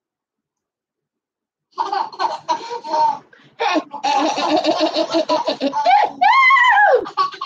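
A person laughing in quick pulsed bursts, starting about two seconds in after silence, then a single high voice that rises and falls near the end.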